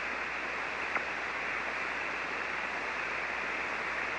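Steady hiss of band noise from a ham radio transceiver's receiver on 40-metre single sideband, heard while no station is transmitting. A faint click comes about a second in.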